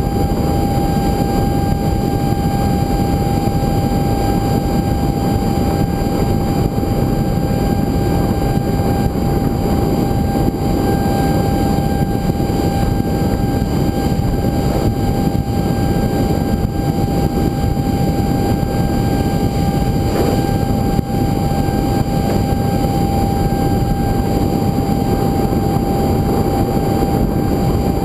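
An FF-22 foam electric ducted fan model jet heard from on board in flight: a loud, steady rush of wind over the microphone with a steady high whine from the ducted fan.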